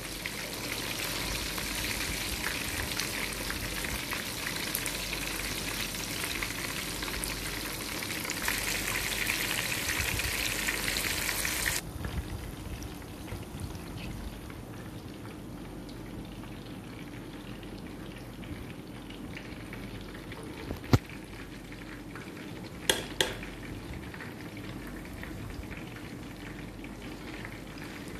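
Silver croaker fish pieces in a gram-flour masala coating deep-frying in hot oil: a dense, steady sizzle that drops suddenly to a quieter sizzle partway through. A sharp click sounds later on, then two more a couple of seconds after.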